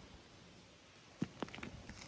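Faint steady hiss of light rain, with a short cluster of sharp light taps a little past halfway.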